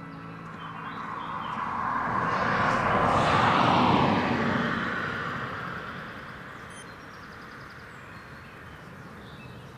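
A passing vehicle: a rushing noise that swells to a peak about three to four seconds in and then fades away.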